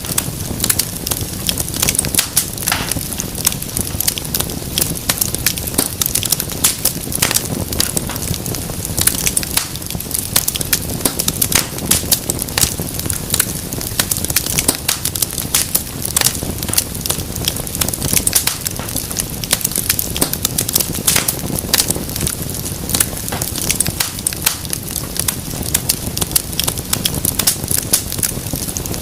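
Wood fire crackling steadily in a fireplace: a dense run of sharp pops and snaps over a low, steady rumble of flame.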